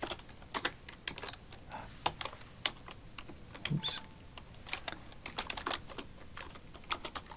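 Typing on a computer keyboard: irregular, fairly quiet key clicks.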